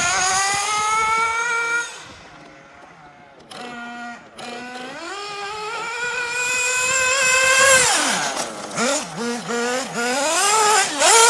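Kyosho Inferno MP9 TKI4 nitro RC buggy's engine revving hard at a high pitch. It drops away for a couple of seconds, climbs back to a steady high whine, then gives several quick throttle blips before opening up again near the end.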